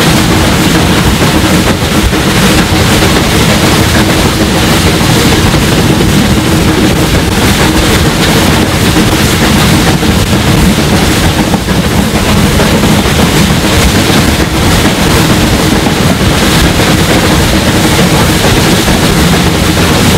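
SR Merchant Navy class three-cylinder steam locomotive 35028 Clan Line working a train, heard close up from the leading window: loud continuous exhaust and running noise with a steady low hum.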